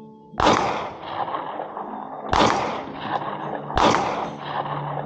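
Three gunshots, about two and then a second and a half apart, each followed by a long trailing echo.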